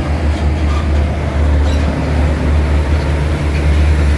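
Heavy truck passing close by and pulling away: a diesel tractor-trailer hauling an ISO gas tank container. Its engine gives a steady low drone over tyre and road noise.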